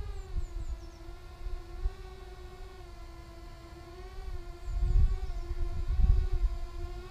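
Electric motors and propellers of a small FPV racing quadcopter whining steadily while it hovers, the pitch wavering gently with throttle. Gusts of wind rumble on the microphone about five seconds in.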